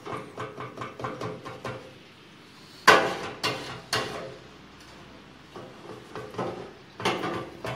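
Metal künefe pans knocking and clanking on the stove as they are turned over a low flame: a quick run of light knocks, then a sharp loud clank about three seconds in, followed by a few more knocks.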